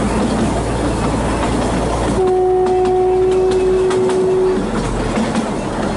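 Narrow-gauge train running, with wheels clicking over the rail joints. About two seconds in, the ZDM5 ALCO diesel locomotive's horn sounds one steady blast lasting about two and a half seconds.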